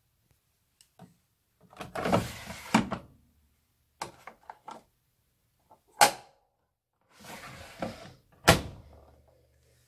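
Miele W1 front-loading washing machine being worked by hand: rustling, small clicks and several sharp thuds, as from its door or detergent drawer being opened and shut. A faint low hum starts after the last, loudest thud near the end.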